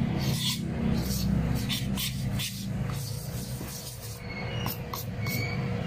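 A metal utensil stirring thick pancake batter in a bowl, scraping and tapping against the bowl's sides with each stroke, over a steady low rumble.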